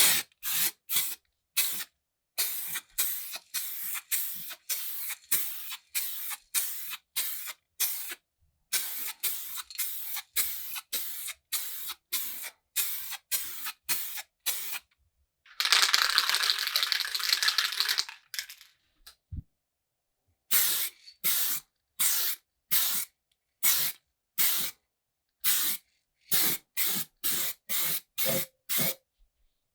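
Paint being sprayed in many short hissing passes, about two a second, with one longer continuous spray of a couple of seconds just past the middle.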